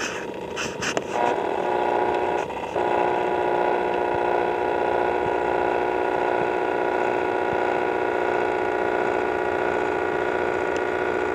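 A machine's engine or motor running with a steady, even hum. It starts about a second in after a few brief noisy rustles, and dips out for a moment about two and a half seconds in.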